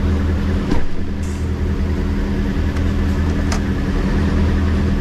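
Heavy truck's diesel engine running steadily, heard from inside the cab, with a click just under a second in and another about three and a half seconds in.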